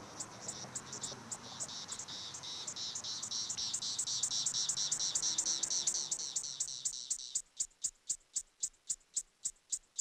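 Brood X periodical cicadas (Magicicada) chorusing: a rapid, even pulsing, about four pulses a second. A high buzzing swells over it for several seconds and cuts off about seven seconds in, leaving the pulses on their own.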